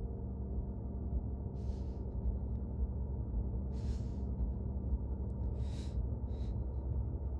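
A low, steady soundtrack drone with faint held hum tones. Short breathy hisses sound over it, once about two seconds in and three more times between four and seven seconds.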